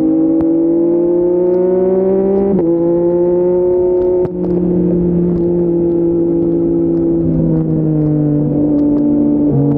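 Yamaha MT-09's 890 cc inline three-cylinder engine, breathing through an Akrapovic full-system exhaust, pulling under throttle while riding. Its pitch climbs, drops suddenly about two and a half seconds in as it shifts up a gear, then climbs again, eases off gradually and picks up near the end.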